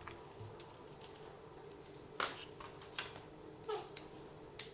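A few light, scattered clicks and taps from small parts being handled as an RC car is taken apart on the bench, over a faint steady hum.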